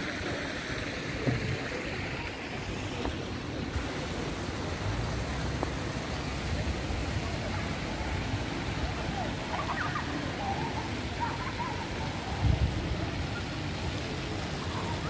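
Steady outdoor city ambience heard on a walk: a continuous noisy rush with low rumble, faint distant voices about two-thirds of the way through, and a brief low thump near the end.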